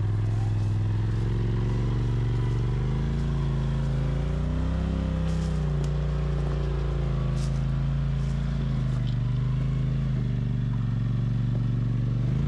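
Side-by-side UTV engine running at low revs while rock crawling. The engine pitch rises gently about halfway through as the throttle is eased on, then settles back.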